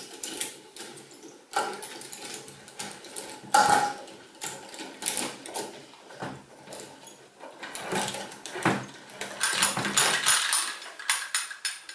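Metal jaws and band of a Merle adjustable clamp clicking and clinking irregularly as they are shifted and lined up around a hexagon of wooden slats.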